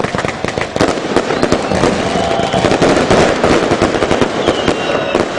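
Fireworks going off: a dense, rapid run of sharp crackles and pops that grows louder about a second in.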